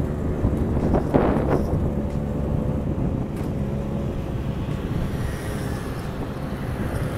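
Honda Gyro Up scooter's small engine running steadily while riding at about 30 km/h, with wind buffeting the microphone. A brief louder rustle comes about a second in.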